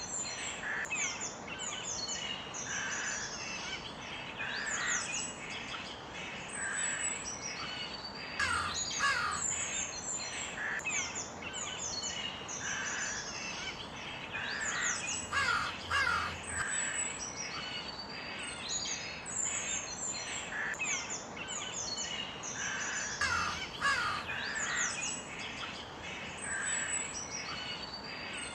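Crows cawing repeatedly, a call about every two seconds, over a busy chorus of smaller birds chirping and whistling.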